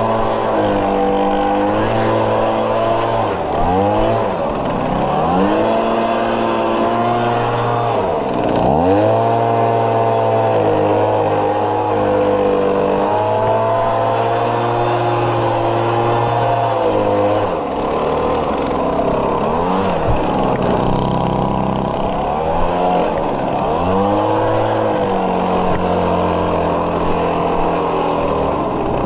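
Lawn mower engine running steadily, its pitch sagging sharply and recovering several times.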